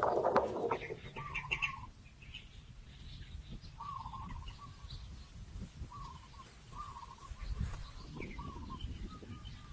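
Birds calling outdoors: a short wavering note repeated every second or two, with fainter higher chirps. A brief loud rustling burst comes at the very start, over a low rumble.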